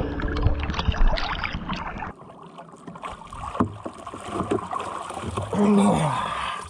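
Water sloshing and splashing against a catamaran's hull and stern step. Louder splashing and dripping about a second before the end as a snorkeler hauls himself out of the water onto the step.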